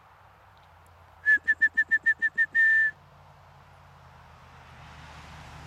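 A person whistling to call the dogs back: eight quick, loud, same-pitched whistles in a row, ending in one longer whistle.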